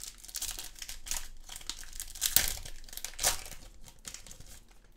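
Foil trading-card pack wrapper being torn open and crinkled by hand: a run of crackling, loudest about halfway through and tapering off near the end.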